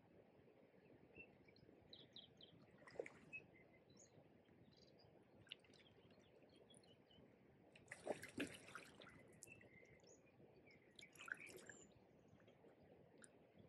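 Near silence by a river, with faint scattered small-bird chirps and three brief water splashes about three, eight and eleven seconds in, the one at eight seconds the longest and loudest.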